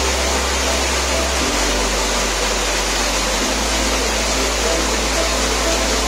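Steady rush of a waterfall, with background music of sustained low bass notes changing pitch about every two seconds.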